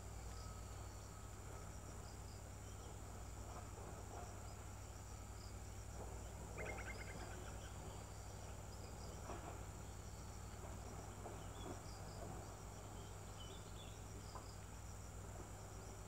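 Faint, steady high-pitched drone of insects over a low steady hum, with a few short, faint chirps scattered through it and a brief rapid clicking chatter about six seconds in.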